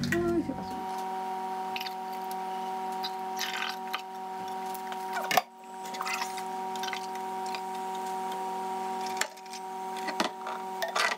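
Liquid pouring from a blender jar through a funnel into a glass bottle stops within the first second. After that, glass bottles and the funnel are handled with sharp clinks and clicks: a loud one about five seconds in and several near the end. A steady hum runs underneath.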